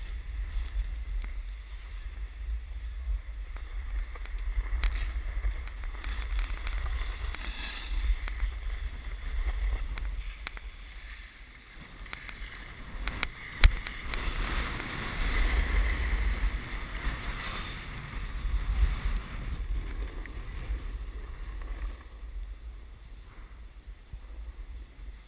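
Wind rushing over a GoPro's microphone while riding downhill, under the hiss and scrape of a snowboard sliding on packed snow, which swells and fades as the rider turns. A single sharp knock a little past halfway.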